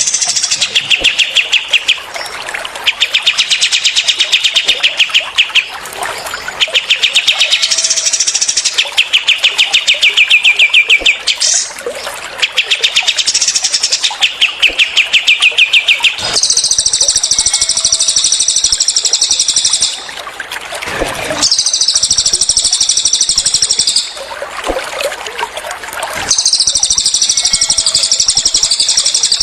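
Recorded songbird calls of cililin and kapas tembak birds: for the first half, bursts of very fast repeated notes about two seconds long, and after that longer, higher, dense chattering phrases a few seconds each with short gaps between them. A faint trickle of water runs underneath.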